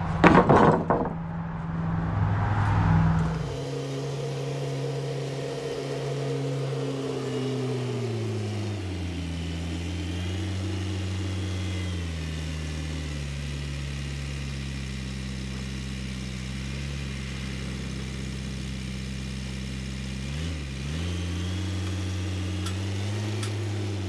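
A brief clatter of lumber boards at the start, then a compact tractor engine running steadily while the tractor carries boards on its pallet forks. The engine speed sags slightly a few seconds in and dips briefly near the end.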